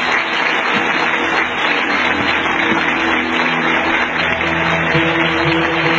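Audience applauding, with a guitar-led song starting up about four seconds in.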